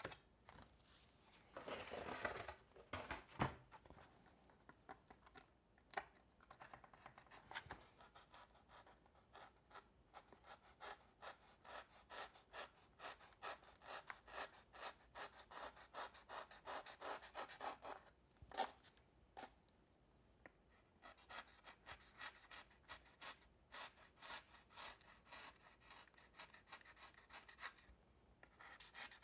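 Craft knife cutting through paper-faced foam board, trimming the wingtip end caps flush with the wing: faint, crackly scraping in runs of short strokes, louder about two seconds in, with a sharp click soon after.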